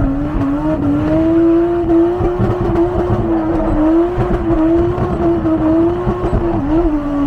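Toyota 1JZ straight-six engine held at high, fairly steady revs, its pitch wavering slightly up and down, with a brief dip about six and a half seconds in.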